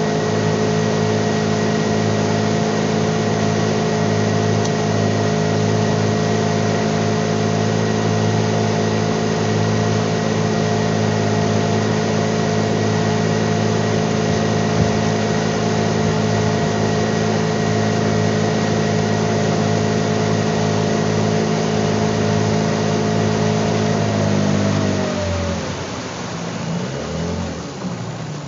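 Outboard motor on a small boat running steadily at high speed, with a wash of water beneath it. About three-quarters of the way through it is throttled back: the pitch drops and it falls to a much quieter low-speed running.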